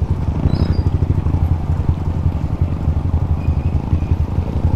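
Motorcycle engine running steadily on the move, a fast even low pulsing with no revving up or down.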